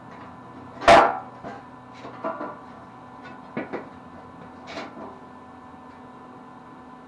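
Steel workpiece being handled: one loud metal clank about a second in, followed by several lighter knocks and clinks over the next few seconds, over a steady electrical hum.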